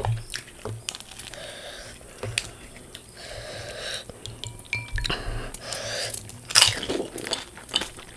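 Pani puri being handled and eaten: small clinks of a spoon and plate, crisp cracks of the puri shells and short patches of mouth sounds, with the loudest crackle about six and a half seconds in.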